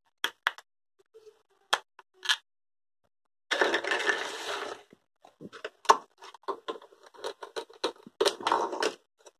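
Hard plastic toy fruit pieces clicking and knocking as they are handled and set down, with two longer crackling rasps. The second rasp, near the end, is the velcro seam of a plastic toy orange tearing apart as a toy knife cuts it in half.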